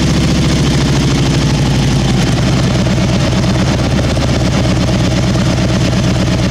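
Harley-Davidson V-twin idling steadily just after a hot start, with no clunk from the compensator, whose spring pack now carries an extra spring washer as a shim.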